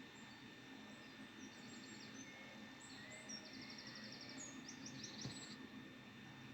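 Faint stock birdsong sound effect being previewed: high chirps and a few quick trills from about a second and a half in until about five and a half seconds, over a low steady hiss.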